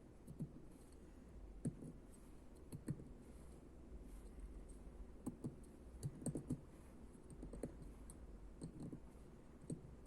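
Scattered light clicks and taps of small metal engine parts, piston and piston rings, being handled and fitted by hand on a workbench.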